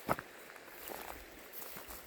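Footsteps on the forest floor: one sharp crunching step just after the start, then fainter scattered rustling steps.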